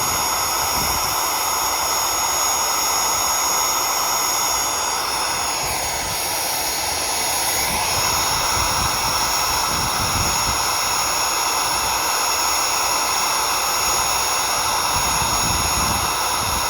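An 8.5 amp vacuum cleaner motor running flat out with its intake taped shut, so it gets no cooling air and is heating up: a steady high whine. Its pitch dips for a couple of seconds about five seconds in, then comes back up. Wind buffets the microphone.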